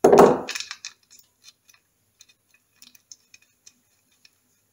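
A short rustling clunk at the start, then light, irregular metallic ticks of a hex key turning a small screw into the alloy primary chaincase.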